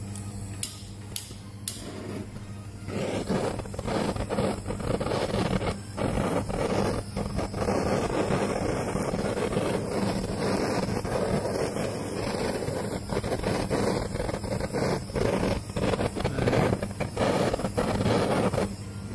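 Handheld kitchen blowtorch running with a steady hissing flame, melting grated cheese on slices of bread. A few clicks come before the flame starts about three seconds in, and it shuts off just before the end.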